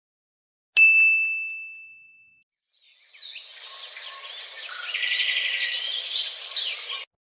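Two sound-effect clips in turn: a single bright ding, one struck tone fading away over about a second and a half, then after a short silence a chorus of birds chirping for about four seconds that cuts off abruptly.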